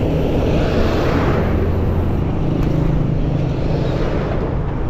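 A truck passes close by. Its engine and tyre noise build to a peak about a second in and ease off over the next couple of seconds.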